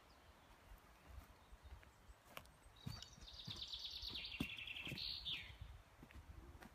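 A songbird sings one fast trill of about two and a half seconds that steps down in pitch and ends in a quick falling flourish. Soft footfalls and knocks on the forest floor sound underneath.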